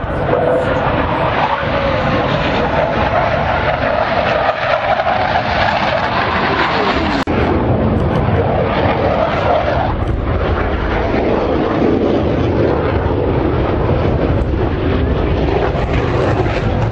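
Jet engines of Blue Angels F/A-18 Hornets passing overhead with a loud, continuous roar. It breaks off for an instant at a cut about seven seconds in.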